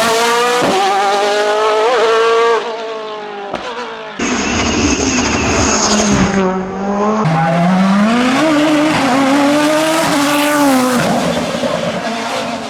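Hillclimb race car engines at full throttle, revving up and dropping back with gear changes. The sound switches abruptly to a different car a few times, about four and seven seconds in.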